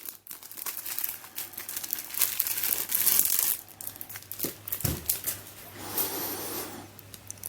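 Plastic packaging crinkling and rustling as it is handled, with a few sharp clicks; this is the sticker set for a Bermuda Megaminx being taken out of its wrapping.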